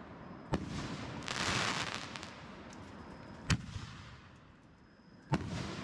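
Fireworks going off: three sharp bangs spaced about three, then two seconds apart, with a burst of crackling hiss between the first two.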